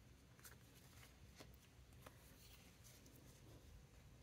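Near silence: faint room tone with a few soft ticks as paper stickers are handled and set down on a tabletop.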